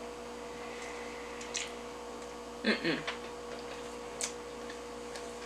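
Quiet room with a steady electrical hum. A short hummed or murmured vocal sound comes about halfway through, with a couple of faint clicks of the kind made by a mouth or utensils while eating.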